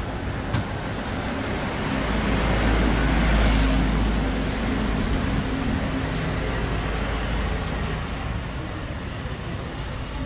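A motor vehicle drives past on a street. Its engine noise swells to its loudest about three seconds in and fades over the next few seconds, over steady traffic noise.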